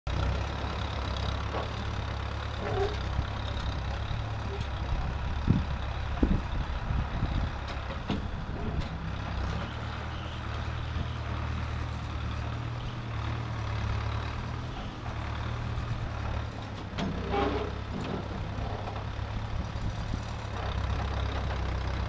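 Tractor-loader-backhoe engine running steadily under load as the front loader bucket pushes and grades dirt, with a few sharp knocks about five to eight seconds in.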